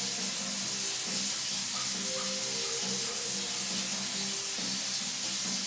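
A steady hiss, with faint music playing underneath.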